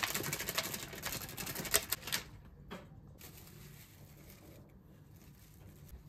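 Thin plastic bag crinkling in a rapid crackle as chocolate chunks are shaken out of it, for about two seconds. Then a softer rustle as cling film is pulled from the roll and stretched over the tin.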